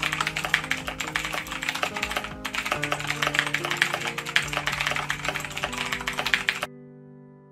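Rapid typing on a computer keyboard, fast clicking keys over background music with held notes. The typing breaks off briefly about two and a half seconds in and stops abruptly near the end, leaving the music alone and quieter.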